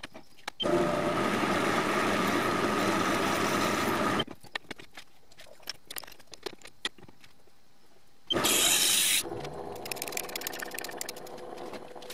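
TV-16 metal lathe running steadily for about three and a half seconds, then stopping; a series of small metal clicks follows as a bit is fitted into the tailstock drill chuck by hand. Near the end comes a short, loud, hissing burst, and then the lathe runs again with a hum that rises in pitch as it spins up.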